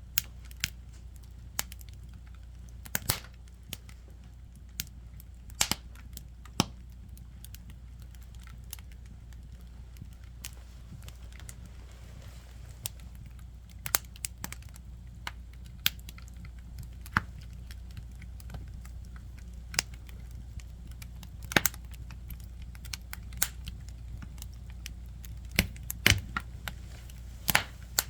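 Firewood burning, crackling with irregular sharp pops, a few of them loud, the loudest cluster near the end.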